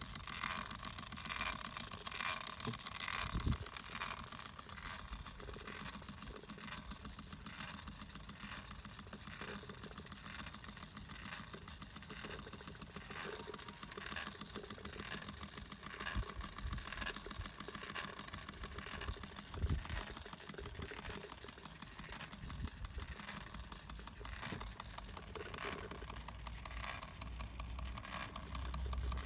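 Wilesco live-steam model traction engine running under steam: a rapid, even chuffing and light mechanical clatter over a steady hiss, with a few dull knocks.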